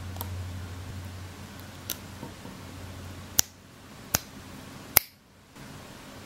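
Four sharp clicks, each a short isolated snap, spaced roughly a second apart, over a faint low hum that stops about halfway through; the sound drops out briefly right after the last click.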